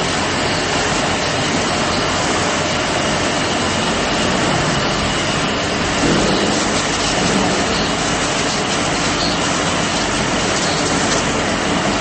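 Steady machine noise of a running mesh belt annealing furnace line, with a faint high steady whine.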